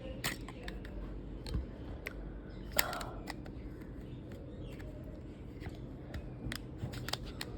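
Scattered sharp clicks and small knocks from the Peace Pistol's parts being handled and forced downward during disassembly, with one louder clack a little under three seconds in, over a steady low hum.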